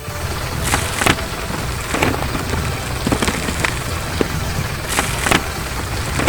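Heavy construction vehicle engine running with a steady low rumble, with irregular sharp clanks and knocks over it, about two a second.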